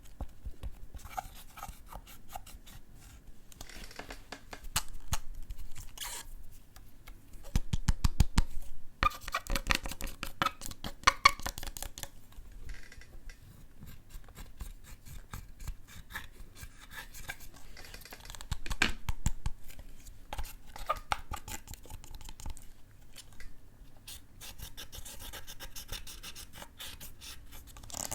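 Close-miked scraping and crackling as slime and eyeshadow are worked by hand, in dense runs of small clicks that come and go, loudest about a third of the way through.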